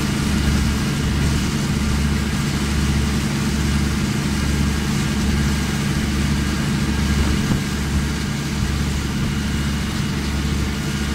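Tour boat's engine running steadily at low, even revs.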